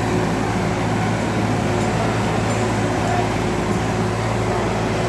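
Sonalika DI 35 tractor's turbocharged three-cylinder diesel engine running steadily under heavy load, pulling a 17-disc harrow.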